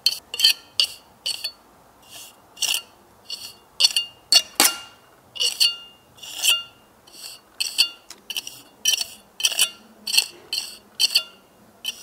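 Steel pointing trowel tip scraping and clinking along fresh mortar joints in brickwork, in a run of short strokes at one to two a second. The perpend joints are being struck into a bird's beak (double-strike) pointed finish.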